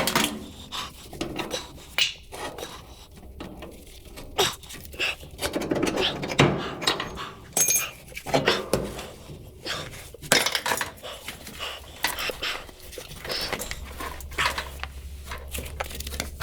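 Metal tools and parts clinking and clattering irregularly, with many sharp knocks. A steady low hum starts near the end.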